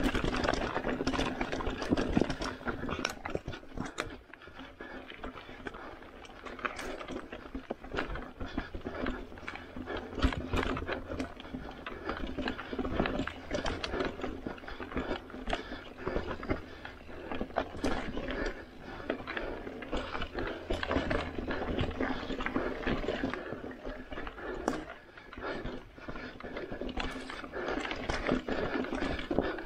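Mountain bike clattering over rocky singletrack: tyres crunching and bumping over rock and dirt, with the bike's chain, frame and fork rattling and sharp knocks on each hit.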